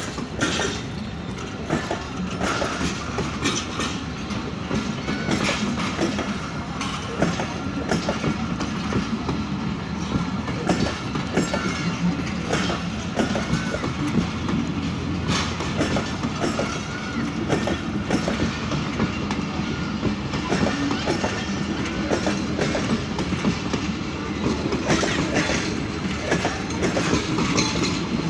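A train of passenger coaches rolling steadily past close by, the wheels clacking over the rail joints in many quick, irregular knocks over a continuous rumble.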